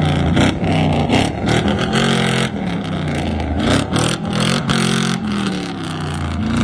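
Engine of a modified off-road 4x4 revving hard under load as it claws up a dirt slope, its pitch rising and falling several times as the throttle is worked.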